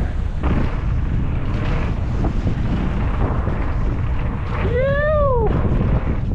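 Strong wind buffeting the microphone: a loud, steady low rumble. About five seconds in, a single short pitched call rises and falls.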